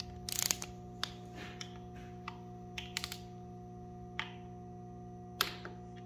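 Scattered light clicks and taps from handling a click-type torque wrench on the timing gear bolts, over a steady low hum.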